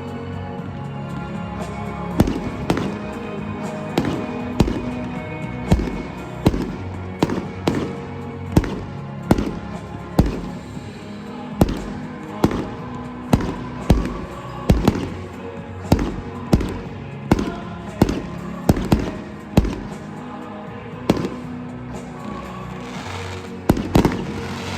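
Fireworks going off in a rapid series of sharp bangs, about one to two a second, starting about two seconds in, over loud music.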